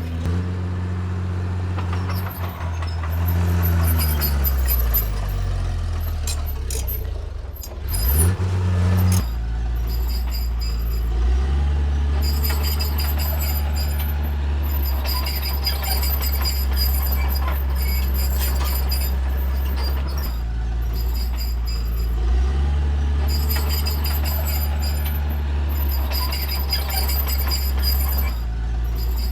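Caterpillar D3C bulldozer's diesel engine working. Its pitch sinks over several seconds, then it runs steadily under load, with repeated high-pitched squeals coming and going over the engine.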